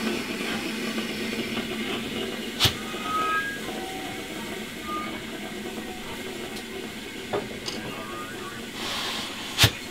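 Steam locomotives standing in steam, a steady hiss and rumble. Two sharp metallic bangs stand out, one a few seconds in and a louder one near the end, just after a brief swell of hiss.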